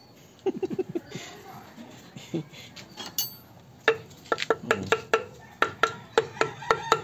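Light, sharp metallic taps in a steady run of about three a second, starting about four seconds in, from hand work on a small engine's parts.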